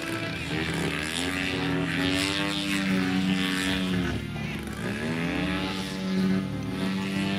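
Propeller-driven aerobatic airplane's engine running, its pitch sweeping down and back up as the throttle changes through the maneuvers, with the deepest dip about four to five seconds in.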